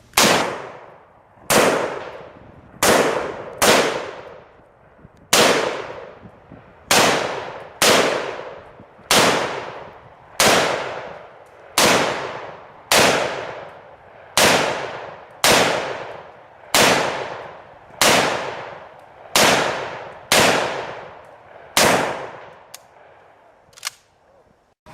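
Mini Mac 30 two-stroke chainsaw being pull-started again and again, about eighteen hard yanks on the recoil starter cord, each cranking the engine briefly before it fades. The engine never catches: a saw that won't start, which they blame on the carburetor letting in too much air.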